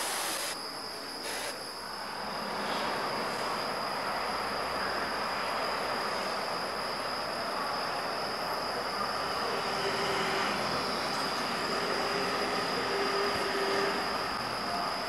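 Steady rushing background noise with a constant high-pitched whine running through it; a faint low hum joins near the end.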